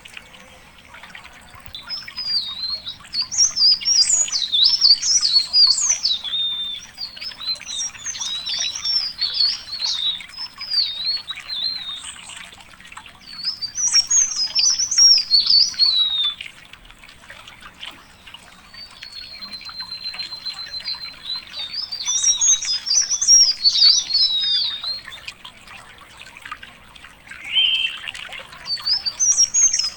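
A songbird singing rapid, high warbled phrases, each a few seconds long, about five times with short pauses between. In one pause a thin, steady whistle is held for a couple of seconds.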